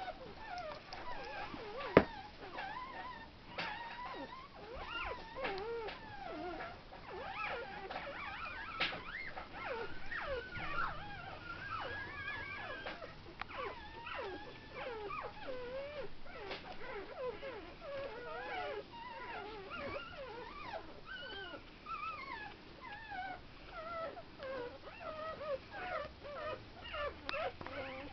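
Mudi puppy whining over and over, in short high calls that rise and fall in pitch. A single sharp click about two seconds in.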